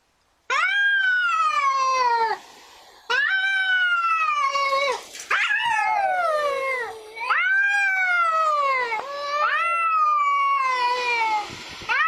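A cat meowing in a string of about five long, drawn-out calls, each starting high and sliding down in pitch.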